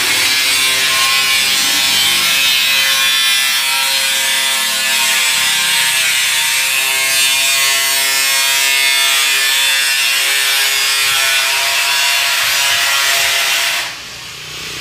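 Sandpaper rasping steadily across hardened body filler on a car body panel, a loud continuous scratching that drops away about a second before the end.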